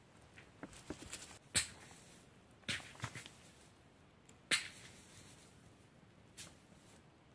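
Flat stones being set and knocked against one another while stacking a dry-stone wall: a few scattered sharp clacks, the loudest about a second and a half and four and a half seconds in.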